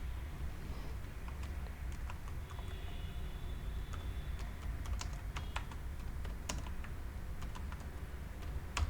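Computer keyboard keystrokes at an irregular pace, typing in a file name, over a steady low hum.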